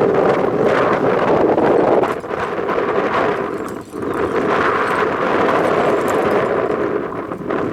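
Wind buffeting the microphone, a loud rushing noise that dips briefly about four seconds in.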